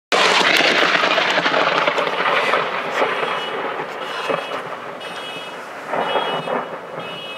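Thunderclap from a very close lightning strike: a sudden, very loud crack right at the start, then a rumble that slowly dies away over the next several seconds.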